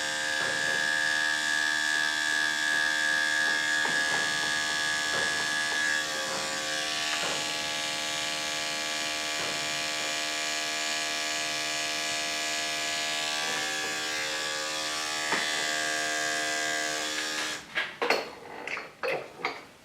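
Electric dog grooming clippers running with a steady motor hum while shaving hair around a dog's ear, switched off near the end, followed by a few light clicks.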